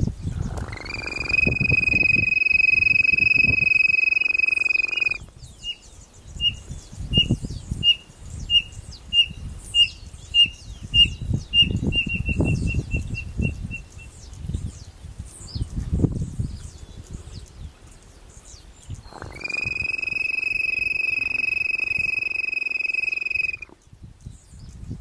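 A codorna bird-call whistle (pio) blown in one long steady note, then a codorna answering with a run of short whistled notes that speed up toward the end. A second long steady note on the whistle comes near the end. Low thumps run underneath.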